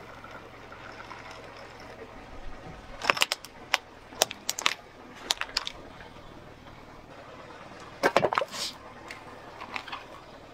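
Plastic toys cracking and snapping under a car tyre on asphalt: clusters of sharp cracks about three seconds in and again over the next two seconds, with the loudest burst of crunching about eight seconds in.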